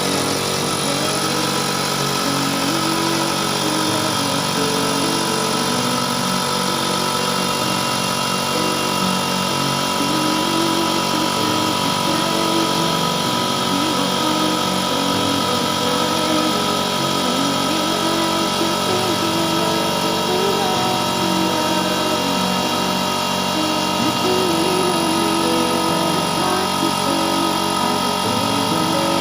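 Air compressor switched on and running steadily, pumping up its empty tank from zero pressure.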